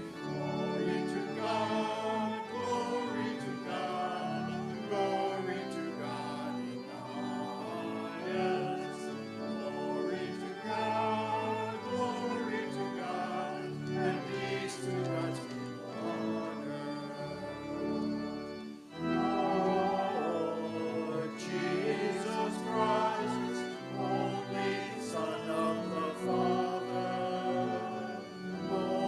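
Small vocal group of four, two men and two women, singing together with instrumental accompaniment, with a brief pause about two-thirds of the way through.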